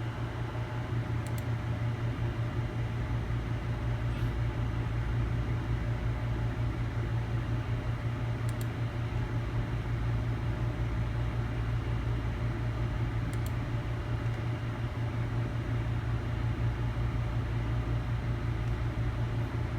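A steady electrical or mechanical hum with an even fan-like hiss. A few faint light clicks sound here and there.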